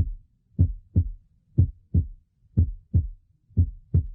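Normal heart sounds heard through a stethoscope: the first and second heart sounds (S1 and S2) as a lub-dub pair about once a second. The second sound of each pair, from the closing of the aortic and pulmonary valves, is a little sharper than the first.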